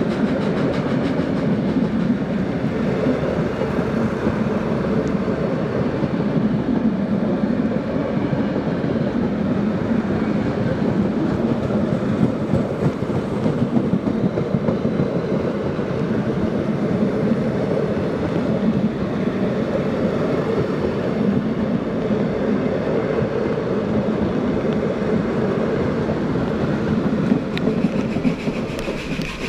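Heritage passenger carriages rolling past at close range: a steady, continuous rumble of wheels running on the rails.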